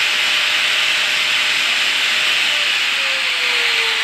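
Angle grinder's universal motor running with a steady high hiss and a thin whine. About two and a half seconds in, the whine starts falling in pitch: the motor is slowing as the TRIAC speed controller turns its voltage down.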